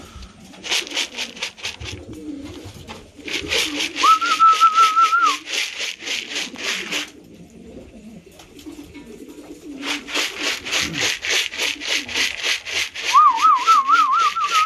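Racing pigeons cooing in the loft while a person calls them in: two warbling whistles, with a fast rhythmic rattle of about ten strokes a second coming in three bursts of a few seconds each.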